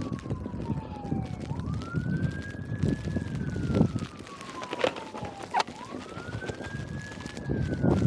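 A distant emergency-vehicle siren on a slow wail: its pitch sweeps quickly up, then sinks slowly, in two cycles of about four seconds each. Under it are footsteps crunching in snow and some wind on the microphone.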